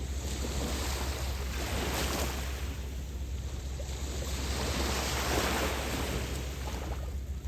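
Lake waves washing ashore in repeated swells that rise and fall every second or two, over a steady low wind rumble on the microphone.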